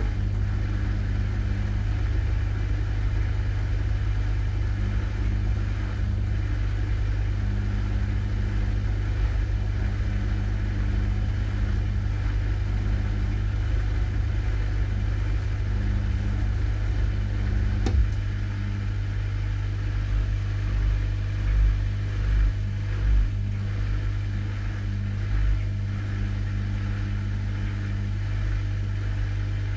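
Dishwasher running a load: a steady motor and pump hum under a haze of water noise, with a tone that cuts in and out every second or so. About two-thirds of the way through a click comes, the water noise thins, and low surges swell and fade several times.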